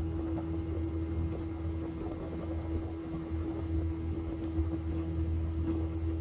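Motorboat engine running steadily under way, an even drone that holds one pitch.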